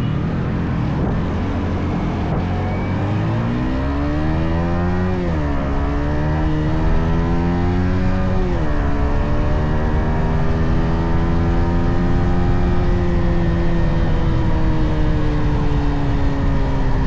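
Yamaha XSR 155's single-cylinder engine through its stock exhaust, revving up under acceleration, dropping in pitch at an upshift about five seconds in and again about three seconds later, then holding a steady cruise and easing off slightly near the end.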